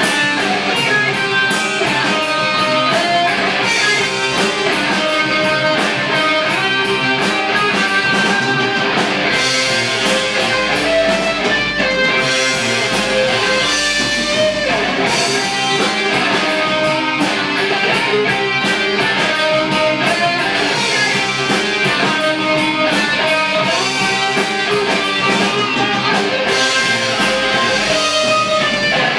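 Live rock band playing an instrumental passage with no singing: electric guitar through a Marshall amplifier stack over electric bass, loud and steady.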